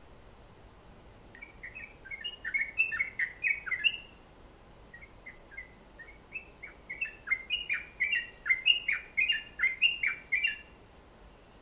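Caged songbird singing in two bursts of quick, varied chirping notes: a short phrase starting about a second and a half in, then a longer, louder run from about five seconds until near the end.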